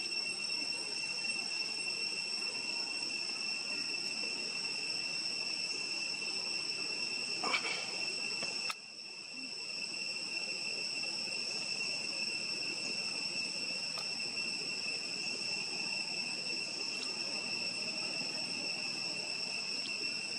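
Steady high-pitched drone of an insect chorus. A short, louder sound comes about seven and a half seconds in, followed by a sudden brief drop in level.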